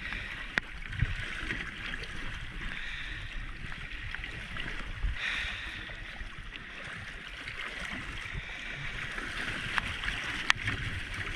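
Sea water sloshing and splashing against a boat's hull, stirred by a marlin held alongside by its bill. There are a couple of brief sharp knocks, about half a second in and near the end.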